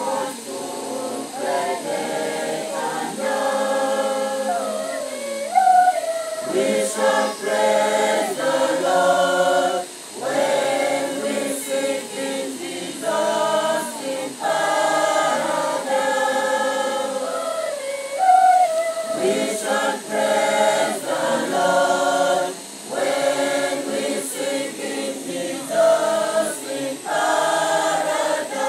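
Choir of boys and girls singing in harmony, one sustained phrase after another with brief breaks for breath.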